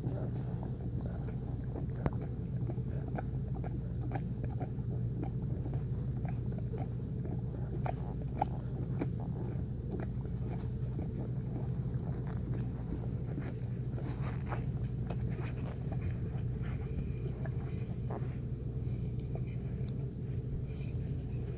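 Newborn Newfoundland puppies nursing and sleeping against their mother: soft, irregular little clicks and snuffles over a steady low hum and a faint high whine.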